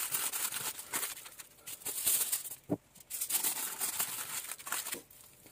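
Aluminium foil crinkling and rustling as hands wrap it around a chicken roll and twist the ends closed. The crinkling stops briefly about halfway, then picks up again.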